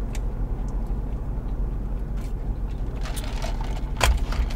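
Steady low rumble in a car cabin, with a few light clicks and rustles and a thump about four seconds in as food and a drink cup are handled.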